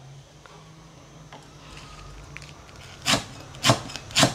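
Cleaver chopping green chili peppers and lemongrass on a wooden chopping board: three sharp chops about half a second apart in the last second and a half, after a few quiet seconds with a low steady hum.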